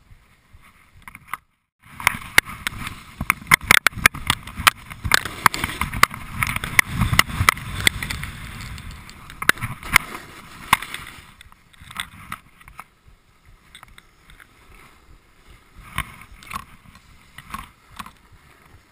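Snowboard sliding and carving down packed snow, a rough scraping crowded with sharp knocks and rattles. It drops out briefly about a second and a half in, is heaviest for the next ten seconds or so, then eases to a lighter hiss with scattered clicks.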